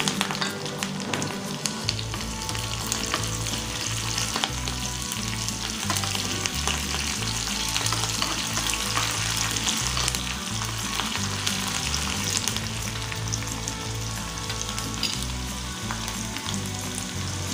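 Cumin seeds and chopped green chillies sizzling steadily in hot oil in a small kadhai for a tempering, with a metal spoon stirring them now and then.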